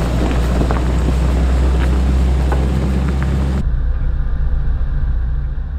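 Four-wheel drive vehicle's engine running with a steady low rumble as it drives slowly along a dirt track, with scattered clicks over the top. About two thirds of the way through the sound abruptly turns duller and more muffled.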